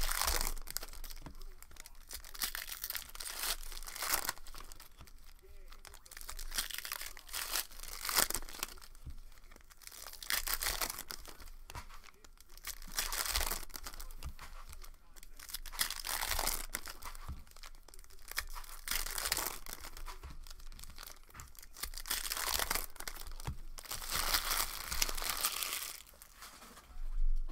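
Foil wrappers of Optic Fast Break basketball card packs being torn open and crinkled by hand as the cards are pulled out. The crackling comes in uneven bursts of a few seconds each.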